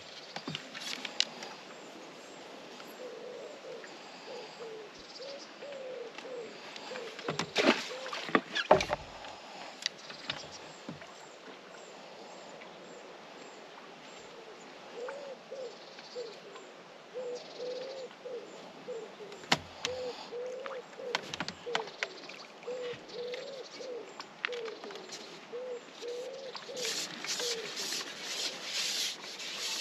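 A pigeon cooing in repeated short, low phrases, with a few sharp knocks and rustles of fishing tackle being handled, the loudest about eight seconds in.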